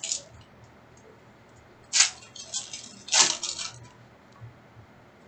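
Trading cards and pack wrappers being handled: a few short, sharp swishes and crinkles. The loudest comes about two seconds in, and a longer run of them follows just after three seconds.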